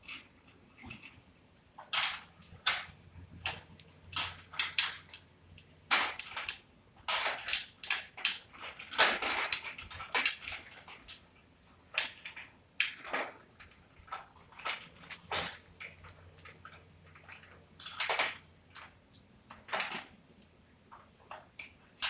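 Irregular metal clinks, clicks and knocks of garage-door hardware being handled and fitted, with a cluster of rapid rattling about halfway through.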